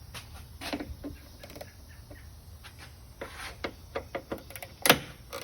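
Irregular clicks and knocks of objects being handled, the loudest a sharp knock about five seconds in.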